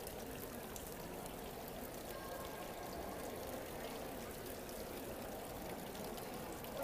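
Steady wash of echoing room noise in a large museum hall with a faint murmur of distant voices, over which a graphite pencil scratches lightly on sketchbook paper.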